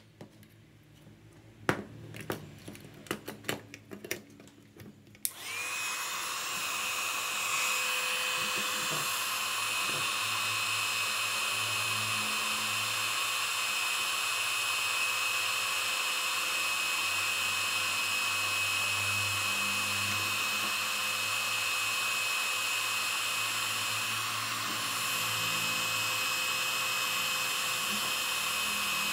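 A few light clicks and knocks, then about five seconds in a small 300 W electric heat gun switches on and runs steadily: a rush of air with a steady high whine from its fan. It is blowing on a circuit board's solder side but is too weak to heat the joints enough to desolder the components.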